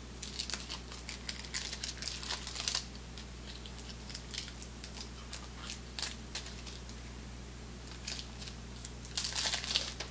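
Paper wrapper of a 1988 Topps Big Baseball Cards pack crinkling and tearing as it is peeled open by hand. The crackling comes in a dense spell over the first three seconds and again near the end, with scattered crackles between.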